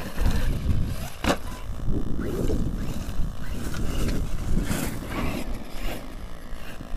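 Arrma Nero brushless 4WD RC monster truck driving on a gravel track, its electric motor whining and its tyres crunching in uneven spurts, with a sharp knock about a second in. Wind buffets the microphone throughout.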